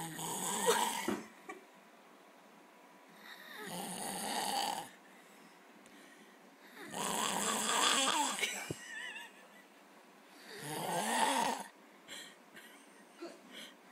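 A man snoring in his sleep: four rough snores about three and a half seconds apart, each lasting a second or so.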